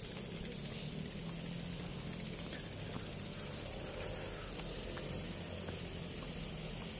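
Insects calling in chorus: a steady high-pitched whine, with a falling chirp repeating about twice a second.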